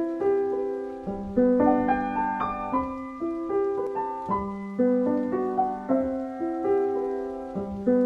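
Intro music played on piano: a melody of struck notes and chords following one another steadily, each note fading after it is struck.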